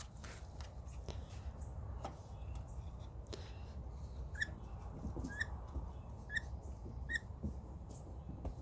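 Pocket bike fuel primer being pumped by hand, giving a few clicks and then a short squeak with each press, about once a second. It is not drawing fuel: the primer is pumping air, not gas.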